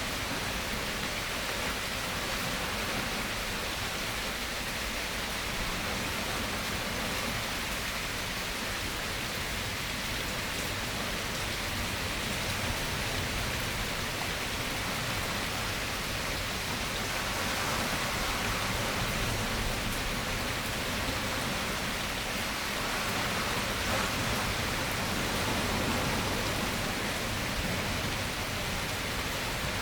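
Steady rain falling in a continuous dense hiss, slightly heavier for a while in the second half.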